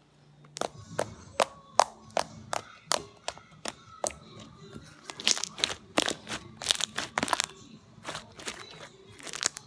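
Slime being squeezed and worked in the hands, giving irregular sharp pops and crackles, several a second, coming thickest past the middle.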